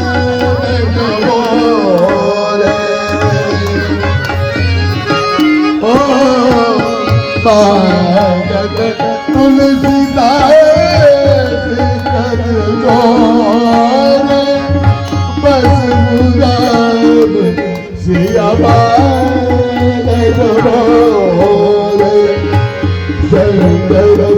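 A Hindu devotional bhajan: singing with a swaying melody over steady held notes, accompanied by hand drums playing a continuous rhythm.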